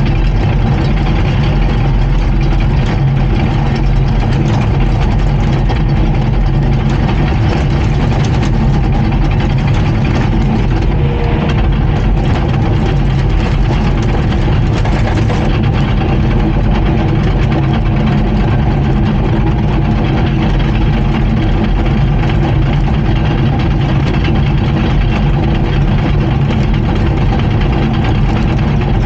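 Komatsu D39PX crawler bulldozer's diesel engine running steadily.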